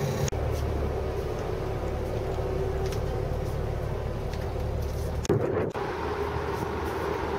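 Houseboat's engine running while under way, a steady low drone, with abrupt jumps about a third of a second in and about five seconds in.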